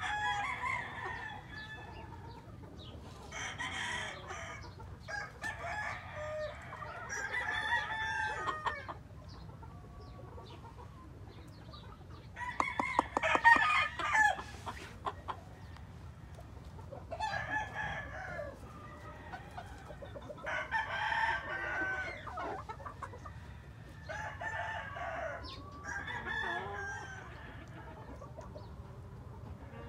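Gamefowl roosters crowing again and again, a crow every three or four seconds, the loudest about halfway through, with hens clucking between the crows.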